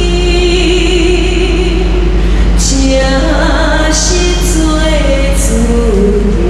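A woman singing into a handheld microphone, amplified, holding long notes that step between pitches.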